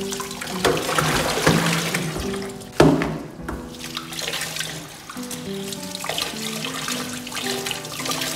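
Tap water running into a stainless steel sink as lemongrass stalks are scraped and rinsed under the stream, with one sharp knock against the sink about three seconds in. Background music with a simple melody plays throughout.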